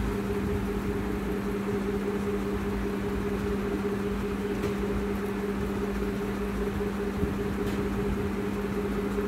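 Steady electric hum of a Juki industrial sewing machine's motor left running while the machine itself is stopped, with a few faint clicks.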